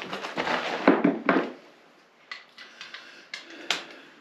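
Rustling and scraping of a body settling onto cardboard for about the first second and a half, then a few light, irregular metallic clicks of a wrench working the oil drain plug under a Can-Am Defender UTV.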